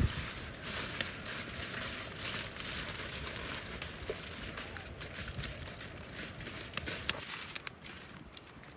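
Aluminium foil crinkling and rustling as it is pressed and crimped down over the rim of a paella pan, with many sharp little crackles; the rustling thins out near the end.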